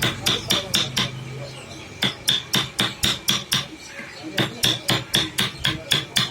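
Hammer tapping in quick runs of sharp strikes, about four a second, with short pauses between runs and a light metallic ring on each blow.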